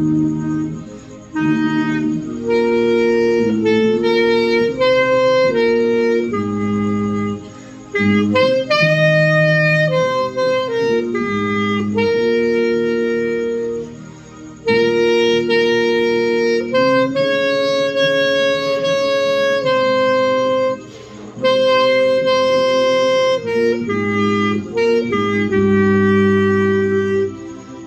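Clarinet playing a melody along with a low brass part, sustained notes moving from one to the next in phrases with short pauses between them.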